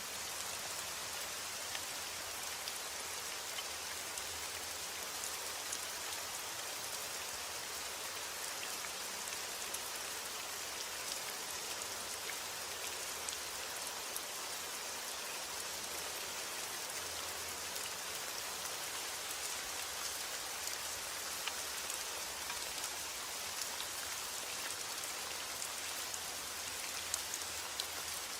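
Heavy rain falling steadily: a dense, even hiss with countless fine patters of individual drops, unchanging throughout.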